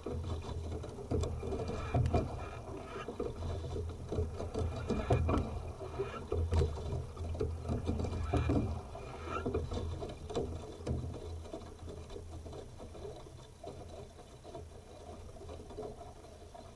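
Rowing scull under oars: knocks from the oars and rigging and water rushing past the hull in a stroke rhythm of about one stroke every three seconds. The sound dies down over the last few seconds.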